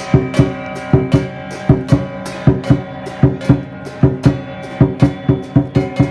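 Chinese lion dance percussion: a big drum beaten together with clashing cymbals and a gong, at about two to three strikes a second, with the metal ringing on between hits. The beat quickens near the end.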